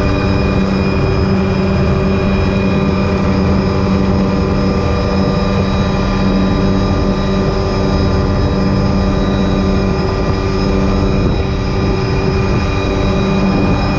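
Tour helicopter's rotor and turbine engine running steadily in cruise, heard from inside a cabin flown with the doors off, with wind rushing past; a steady hum with several held tones over the roar.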